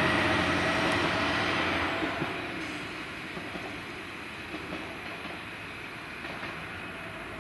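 Single-car diesel railcar pulling away, its engine and wheel noise fading over the first few seconds as it recedes, then lingering faintly with a few wheel clicks over the rail joints.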